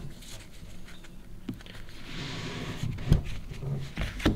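Trading cards being handled and flipped through in the hands: soft sliding rustles of card stock, with a couple of short low knocks about three and four seconds in.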